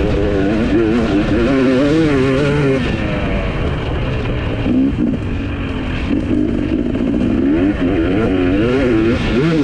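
GasGas MC 250 two-stroke motocross engine at full race pace on board, revving up and down through corners and down a straight, with the pitch dropping briefly about halfway through and then climbing again.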